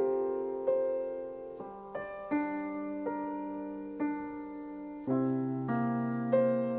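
Slow, gentle piano music: notes and chords struck about once or twice a second, each ringing on and fading before the next.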